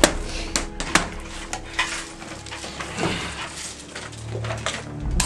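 A run of irregular sharp clicks and knocks from hard objects being handled and clattering together, the loudest right at the start.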